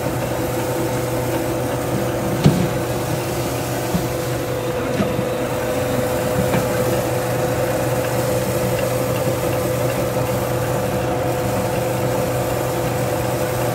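Rice hulling mill running steadily with a constant hum while it hulls bamboo rice, the grain pouring from its outlet. There is one short knock about two and a half seconds in.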